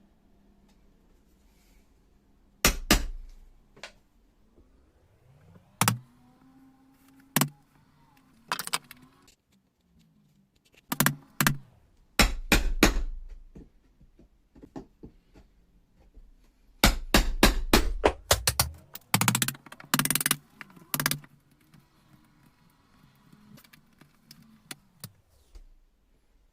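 Hammer or mallet striking a chisel in repeated sharp knocks, cutting away wood on the catch side to fit the latch; single blows at first, then quick runs of blows in the second half.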